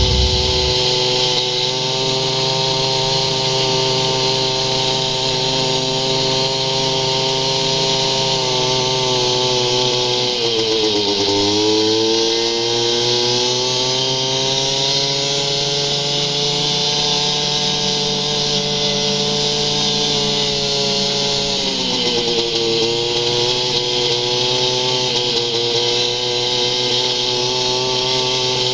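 Snowmobile engine running steadily at a high, whiny pitch, sped up with the footage. The pitch dips twice, about ten seconds in and again about twenty-one seconds in, and climbs back each time as the throttle eases and opens again.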